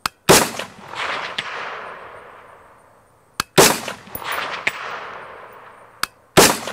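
Three rifle shots from an AR-15 chambered in 25-45 Sharps, about three seconds apart, each trailing off into an echo. About a second after each shot comes a faint clang of the bullet striking a steel target at 300 yards.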